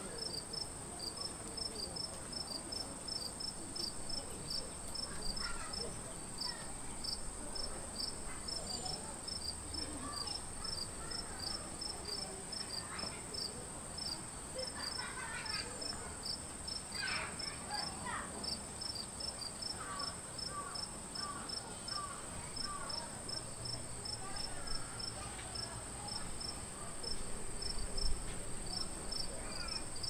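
Insects chirping: a steady high-pitched trill, with a regular chirp about twice a second running under it.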